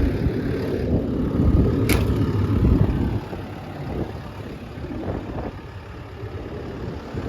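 JCB JS160 excavator's diesel engine running at idle, louder for the first three seconds and then quieter, with a single sharp click about two seconds in.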